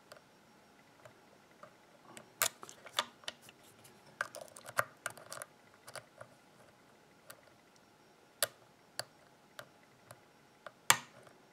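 Small, sharp metallic clicks and taps at irregular intervals as a hook pick works the pin tumblers of a brass euro cylinder lock held under tension, the loudest click near the end.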